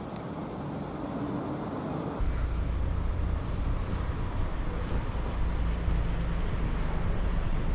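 Street traffic: a vehicle's engine and road noise, growing louder, with a heavy low rumble setting in abruptly about two seconds in.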